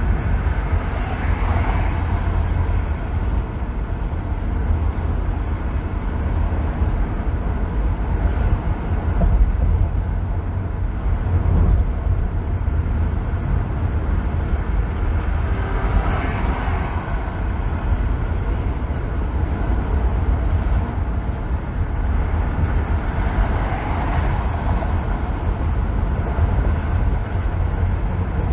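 Steady road noise of a car driving on a freeway: a deep continuous rumble of tyres and engine under a hiss of rushing air. The hiss swells briefly three times, about a second in, near the middle and past the three-quarter mark.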